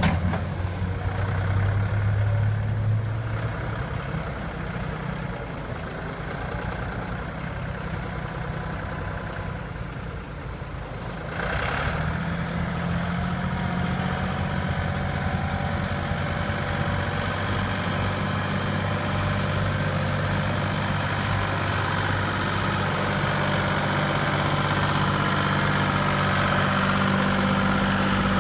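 John Deere 5310 loader tractor's diesel engine running while it works a manure pile. About eleven seconds in, the engine speeds up and gets louder, and it stays at the higher speed as the tractor comes close with a loaded bucket.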